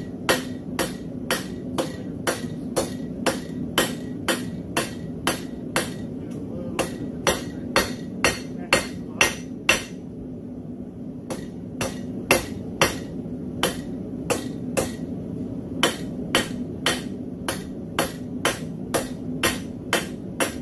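Hand hammer striking a red-hot railroad spike on an anvil, steady blows about two a second. The blows stop for a moment about ten seconds in, then resume at the same pace.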